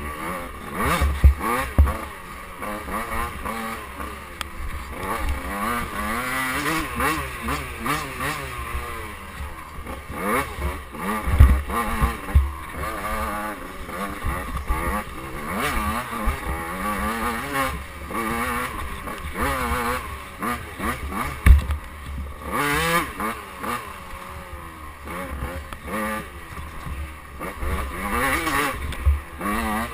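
KTM 85cc two-stroke dirt bike engine revving hard and dropping off again and again as it is ridden through the gears along a bumpy trail. A few heavy low thumps break through, about a second in, about a third and two-thirds of the way, and near the end.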